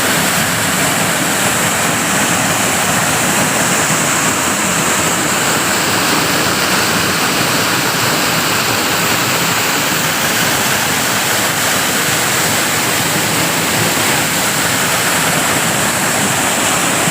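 Waterfall rushing: a loud, steady hiss of falling water that never lets up.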